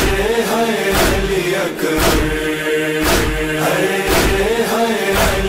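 Male voices chanting a nauha, an Urdu Muharram lament, over a heavy beat that falls about once a second.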